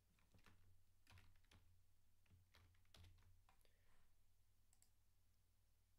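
Faint keystrokes on a computer keyboard: a scattering of irregular taps as a word is typed.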